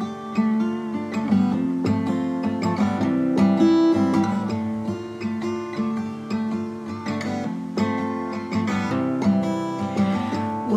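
Music: acoustic guitar strummed and plucked in a steady rhythm, with no singing.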